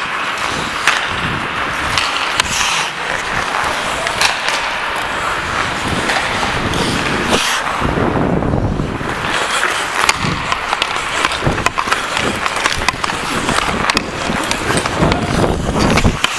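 Ice hockey skate blades scraping and carving the ice close to a player-worn camera, with scattered sharp clicks from sticks and puck.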